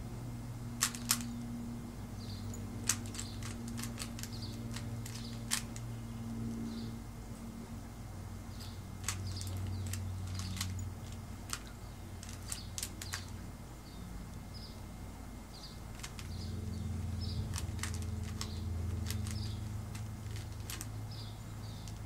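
Rubik's Cube being turned by hand: irregular plastic clicks and clacks as its layers are twisted round, over a steady low hum.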